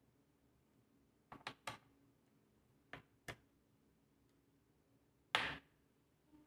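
Light, sharp clicks and taps of a screwdriver and the laptop's plastic bottom cover being handled while the back-cover screws are tightened: three quick clicks, then two more a second and a half later, and one louder brief clatter near the end.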